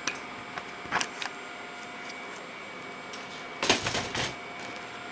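Handling noises: a couple of sharp knocks about a second in, then a short clatter of knocks near the end, as the home-made PC test bench is turned around, over a steady faint whine from the running computer.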